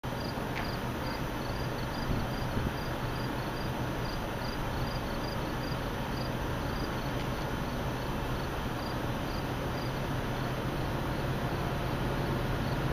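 An insect, such as a cricket, chirping in short high pulses that come in small groups about once a second, over a steady low hum and outdoor background noise.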